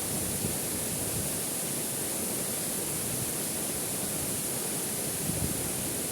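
Steady rushing noise of a waterfall: falling water pouring without a break, even in level throughout.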